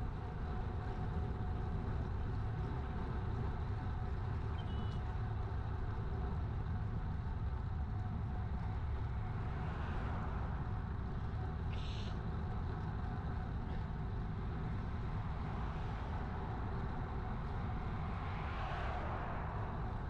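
Steady low wind rumble on a bicycle-mounted GoPro's microphone while riding. Two motor vehicles pass in the oncoming lane, one about ten seconds in and a pickup truck near the end, which is the louder of the two.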